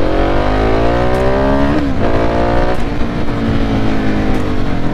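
Husqvarna 701 Supermoto's single-cylinder engine under way, heard from the rider's own mic. Its pitch climbs under throttle and drops about two seconds in, climbs briefly, drops again near three seconds, then slowly falls as the bike slows, with low wind rumble underneath.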